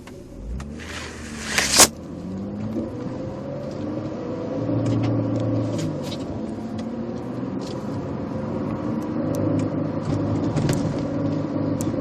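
2000 Mitsubishi Eclipse pulling away and speeding up, heard from inside the cabin, with the engine's pitch rising and falling through the gears and a rumbling, gurgling noise under it. The noise stops when the clutch is pushed in and fades once the car is warm. There is a sharp knock about two seconds in.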